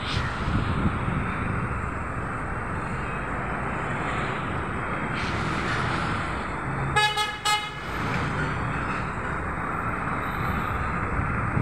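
Steady traffic noise of a busy street, with engines running. About seven seconds in, a vehicle horn gives two short toots, the loudest sound.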